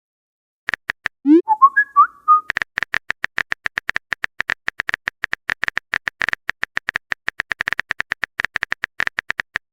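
A short run of chirpy, whistle-like notes sliding up and down, followed by fast, steady clicking at about seven clicks a second, like a keyboard-typing sound effect.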